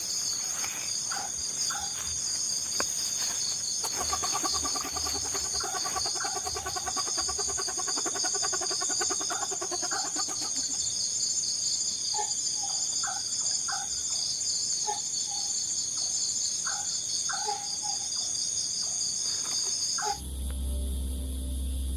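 Night insects chirping in a steady, high, pulsing chorus. A lower trilling animal call runs from about four to ten seconds in, and short scattered calls follow. Near the end a low drone of music sets in and the insect chorus drops away.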